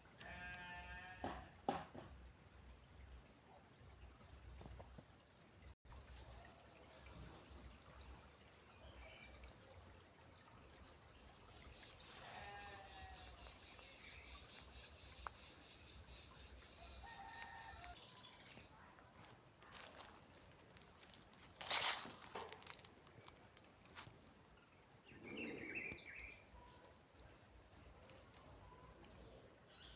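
Rural outdoor ambience: a steady high insect-like trill throughout, a denser high buzzing from about twelve to eighteen seconds in, and a few short animal calls. A single sharp knock about two-thirds of the way through is the loudest sound.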